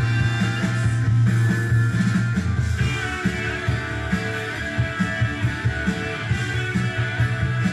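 Rock music with guitar and a steady beat, played from a vinyl record on a Pioneer PL-530 direct drive turntable fitted with a Shure V15 Type III cartridge.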